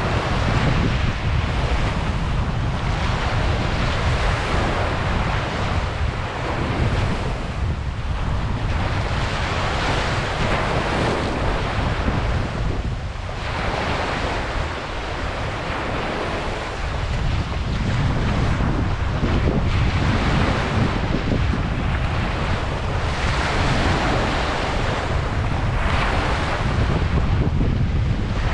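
Ocean waves breaking and washing on a beach, surging every few seconds, with wind buffeting the microphone as a steady low rumble.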